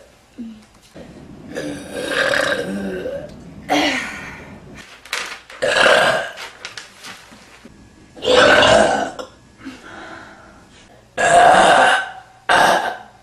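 A woman burping over and over: about six loud belches of differing lengths with short pauses between them, the first and longest lasting over a second.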